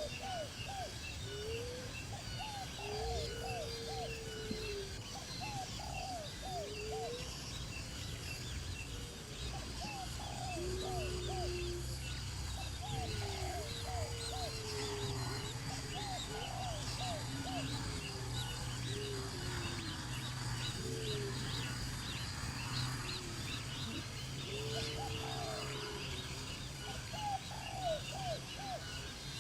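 Several birds calling: low drawn-out notes and quick runs of three or four short hooked notes recur throughout, over many high chirps. A steady low hum runs underneath.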